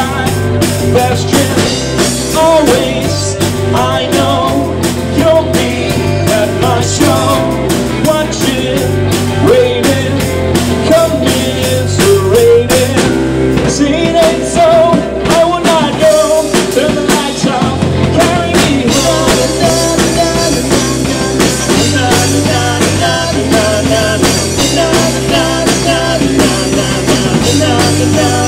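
Live rock band playing: male lead vocals over electric guitar, bass guitar and a Mapex drum kit keeping a steady beat.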